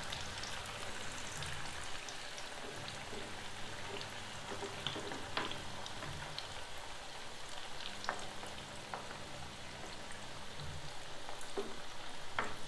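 Cracked-wheat (dalia) patties sizzling steadily as they shallow-fry in hot oil over medium heat, with a few light taps.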